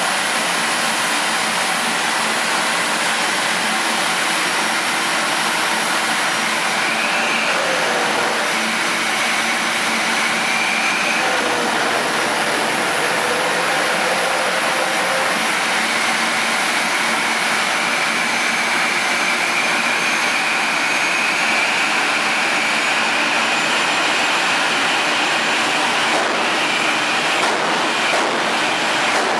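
Jet dragster's turbine engine running at idle on the start line: a steady rush of noise with a high whine that drifts up and down in pitch now and then.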